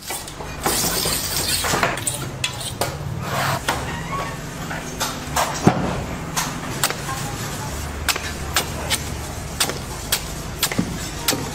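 Machete blade chopping into a green coconut's husk on a wooden block: a quick, irregular series of sharp chops, about one to two a second, over steady background hum.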